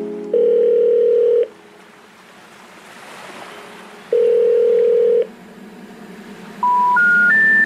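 Telephone signalling tones: two long steady low beeps of about a second each, a soft hiss between them, then near the end three short tones stepping up in pitch, the three-note special information tone that comes before a 'number cannot be reached' message.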